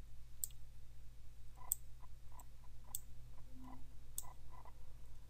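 Computer keyboard keys pressed one at a time, stepping down an autocomplete list: a few sharper clicks about a second apart with softer taps between them, over a faint steady hum.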